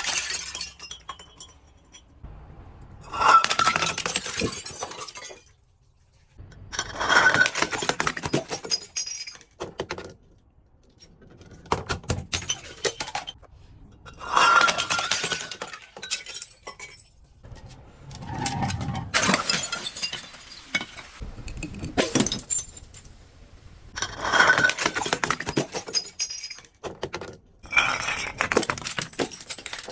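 Glass bottles being crushed and shattering, one after another: about eight breaks, each a sharp crack followed by a couple of seconds of crunching and clinking shards.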